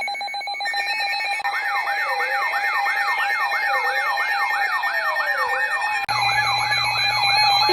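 Layered electronic emergency-alert tones: a steady, rapidly pulsing tone throughout, joined after about a second and a half by a siren sweeping up and down about three times a second and a slower falling sweep. About six seconds in, a low hum is added underneath.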